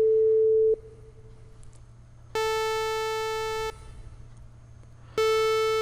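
Analog-synthesizer test waveforms played one after another at the same steady pitch. A pure sine tone cuts off abruptly within the first second. A buzzy sawtooth tone sounds for about a second and a half a couple of seconds in, and a hollow square-wave tone starts about five seconds in.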